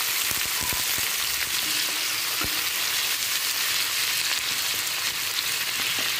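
Chopped onion, tomato, ginger, garlic and cashews sizzling steadily in hot mustard oil in a kadai over medium flame. A wooden spatula stirs them, with a few light knocks against the pan.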